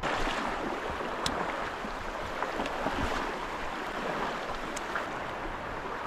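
Steady rushing of flowing river water, with a few faint ticks.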